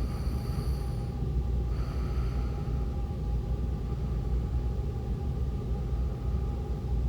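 A sleeping woman's snoring and heavy breathing, a steady low rumble with two brief breathy hisses in the first few seconds, over a faint steady hum.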